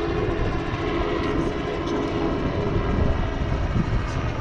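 Helicopter flying nearby, its engine and rotor making a steady drone.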